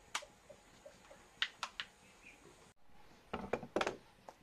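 A one-handed trigger bar clamp clicking as it is pumped tight on a wooden frame: a single click, then three quick clicks. After a break, a quick cluster of knocks on wood and a last click.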